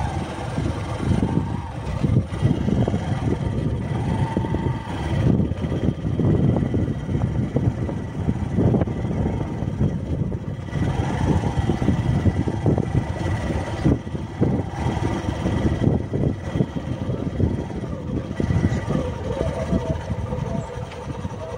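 Wind buffeting the phone's microphone on an open embankment: a loud, uneven low rumble that surges and drops irregularly.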